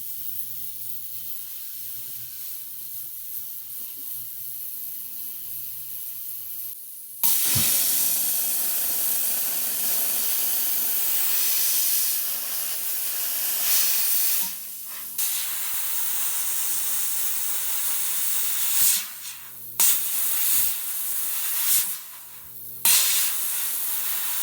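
An ultrasonic cleaner hums steadily. About seven seconds in, a jeweler's steam cleaner starts blowing a loud hiss of steam, cut off briefly three times as the trigger is released, blasting polishing compound off silver rings.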